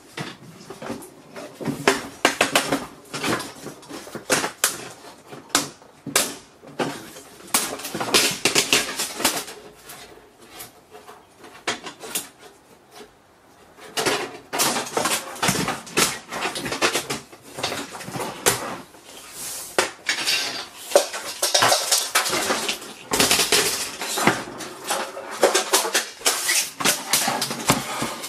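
Plastic and sheet-metal parts of an LCD monitor clicking, scraping and clattering as the plastic bezel frame is pried and pulled off the panel's edges, with a quieter stretch about halfway through.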